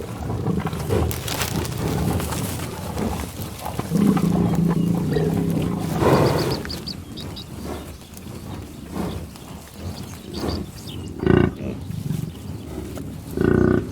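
Cattle mooing: one long, low moo about four seconds in, then two shorter calls near the end.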